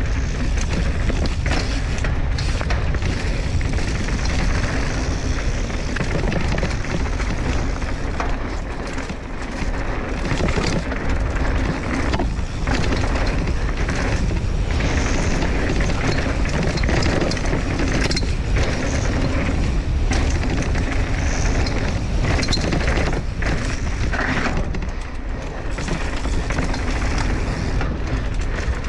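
Mountain bike ridden fast down a packed-dirt trail: a steady rush of wind and tyre noise, heaviest in the low end, with scattered clicks and rattles from the bike over bumps.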